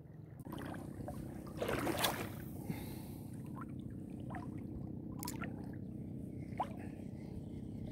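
Shallow seawater sloshing and lapping around a wading shore angler. A brief loud rush comes about two seconds in, and a few light clicks follow later.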